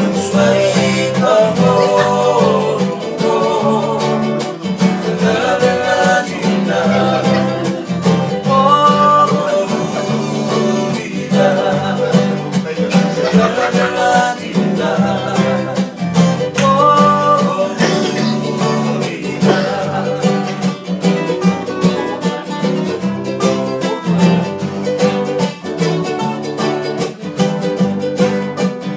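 Two acoustic guitars strummed in a steady rhythm while men sing a song in Fijian.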